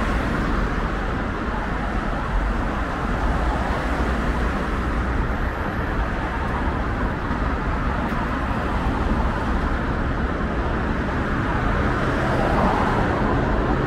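Steady road traffic on a wide multi-lane city avenue: a continuous noise of cars driving past, with no single event standing out.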